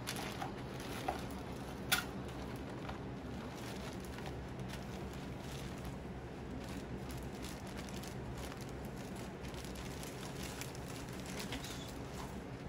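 Clear zip-top plastic bag crinkling and rustling as supplies are handled and taken out, with a few sharp clicks in the first two seconds, the loudest about two seconds in, over a steady room hum.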